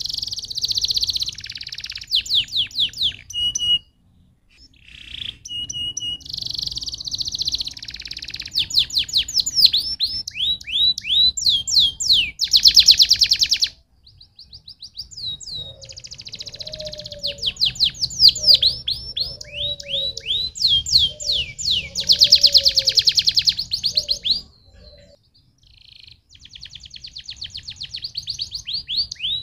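Domestic canary singing in long phrases: fast trills of rapidly repeated downward sweeps alternating with dense buzzing rolls. The song breaks off briefly about 4, 14 and 25 seconds in.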